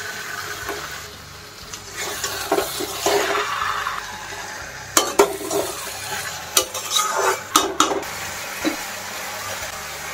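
Marinated chicken sizzling in hot oil in a steel kadai while a metal spatula stirs it. The spatula scrapes and clinks against the pan, with sharp scrapes clustered from about five to eight seconds in.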